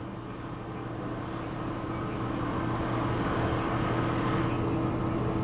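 A motor vehicle running on the road with a steady hum, slowly getting louder.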